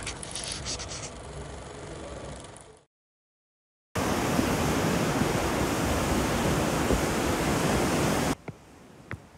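Sea surf: a steady loud rush of breaking waves that comes in suddenly after a second of dead silence and cuts off abruptly about a second before the end.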